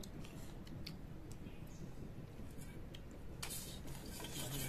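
Quiet eating sounds from people eating rice with their hands off leaf plates: scattered small clicks and squishes of chewing and mixing food, with a rustle starting near the end.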